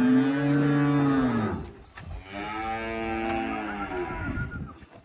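Gyr cattle mooing: two long moos, the first louder, each rising and then falling in pitch.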